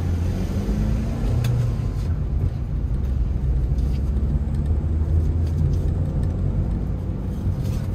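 Steady low rumble of a fuel-injected manual car's engine and tyres, heard from inside the cabin as the car rolls slowly. A couple of faint clicks come about a second and a half and two seconds in.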